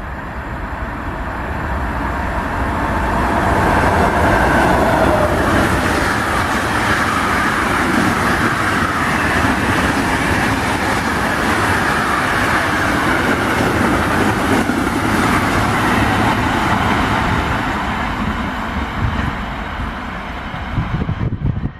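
Container freight train passing at speed: a continuous rumble of wheels on rails that builds over the first few seconds, stays loud, and fades away near the end as the train recedes.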